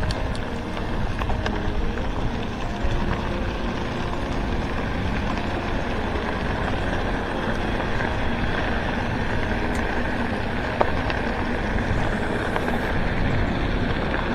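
Mountain bike tyres rolling over a gravel track, mixed with wind buffeting a handlebar-mounted camera's microphone: a steady rush with faint ticks of gravel.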